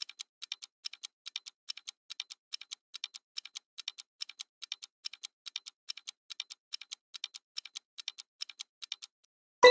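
Quiz countdown-timer sound effect: a rapid, even clock-like ticking, about four ticks a second, that stops near the end and is followed by a bright chime marking the answer reveal.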